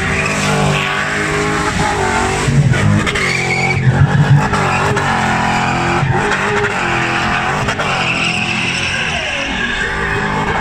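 Spinning car's engine revving hard, its pitch rising and falling, with tyres squealing as the rear wheels spin on tarmac. The loudest stretch comes about three to four seconds in.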